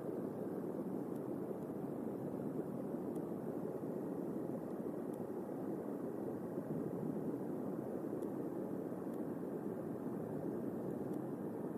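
Steady, unbroken noise of a thunderstorm's rain and wind on an outdoor nest-cam microphone, deep and even, with no thunderclap.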